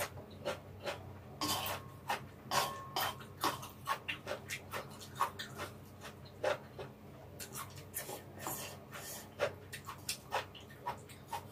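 Close-miked eating of stir-fried ramen noodles with bean sprouts: wet chewing, smacking and slurping in quick, irregular clicks, with chopsticks picking noodles from the pan.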